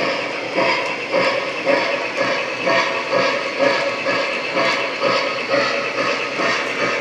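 Lionel Polar Express model train running past on its track, a steady running noise with a regular beat about twice a second.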